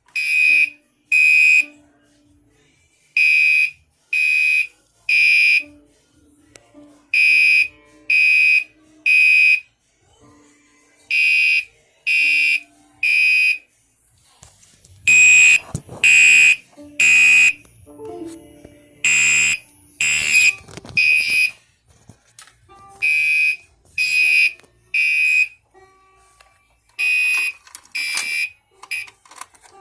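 Gentex Commander 3 fire alarm horn sounding the temporal code 3 evacuation pattern on its low setting: three short high blasts, a pause of about a second and a half, then three more, over and over. A few knocks sound over the blasts about halfway through.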